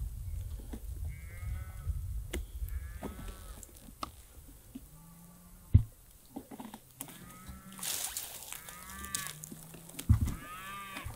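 A series of about six drawn-out animal calls, each rising and falling in pitch, a second or two apart, with low wind rumble at the start and two sharp clicks, one about halfway through and one near the end.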